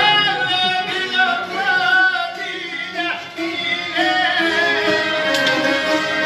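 A man singing a wavering, ornamented folk melody over several strummed long-necked lutes; the voice breaks off briefly about three seconds in, then resumes.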